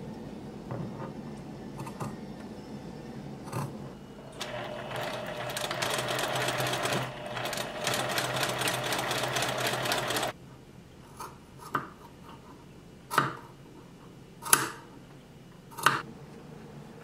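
Electric sewing machine stitching fabric in a fast, even run of about six seconds with a brief pause partway, then stopping. After that come a handful of separate sharp clicks, about a second apart.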